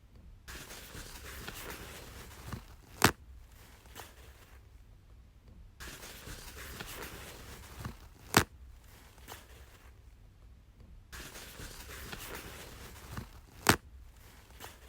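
Toilet paper pulled off its roll, unrolling with a rustle for about two seconds and then torn off with a sharp snap, repeated three times about five seconds apart.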